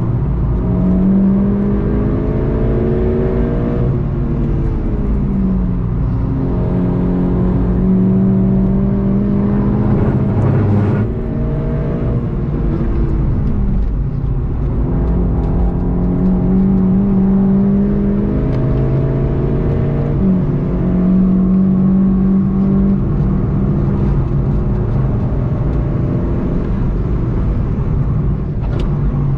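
VW Golf 7.5 GTI TCR's turbocharged 2.0-litre four-cylinder driven hard, heard from inside the cabin. The engine note climbs and then drops sharply at each upshift, several times over, easing off near the middle under braking before pulling hard again.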